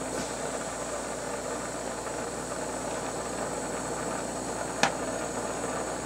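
Glassworking bench torch burning with a steady hiss while glass tubing is worked in the flame. A single sharp click sounds about five seconds in.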